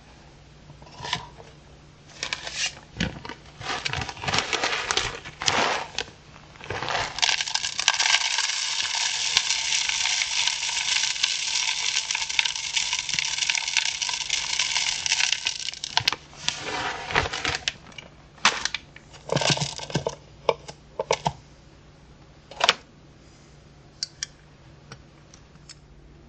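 Birdseed poured from a plastic bag through a plastic funnel into a bird feeder's clear seed tube: a steady rush of pouring seed for about nine seconds in the middle. Before and after it come scattered crinkles of the bag and small clicks and knocks of handling.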